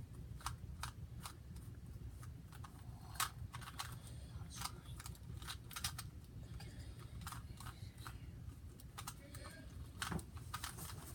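Rubik's cube being turned by hand: irregular plastic clicks and clacks as the layers rotate, several a second.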